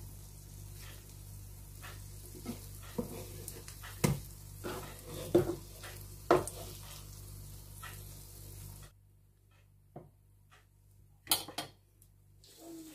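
Eggplant omelette slices sizzling in oil on an electric griddle, with a spatula scraping and knocking as they are lifted onto a plate. The sizzle cuts off about nine seconds in, leaving a few clicks.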